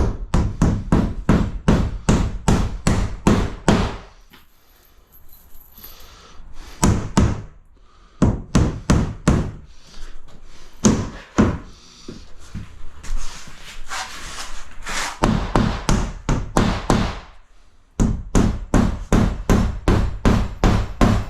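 Hammer blows on cement sheet fixed to timber framing. The blows come in runs of about three to four a second, with short pauses between runs.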